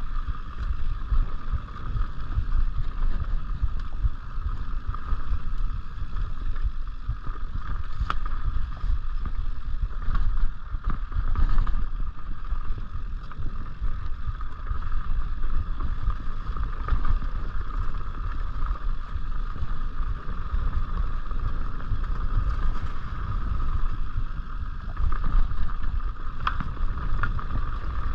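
Mountain bike rolling down a dirt singletrack: wind buffeting the bike-mounted camera's microphone and tyres on the trail make a steady low rumble, over a constant high buzz. Short rattles and clicks from the bike come a few times over bumps.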